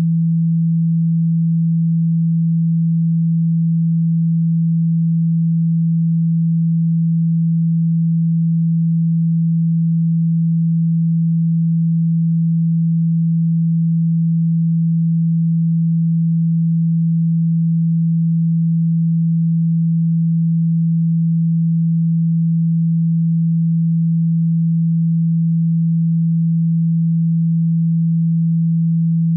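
A steady low sine tone, a single pitch held without change, played as a speaker-cleaning sound to vibrate water and dust out of a phone speaker.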